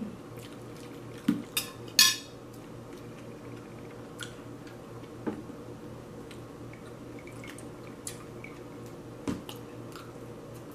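Metal spoon clinking on a ceramic plate, the loudest clink about two seconds in ringing briefly, followed by scattered softer taps and clicks. A steady low hum runs underneath.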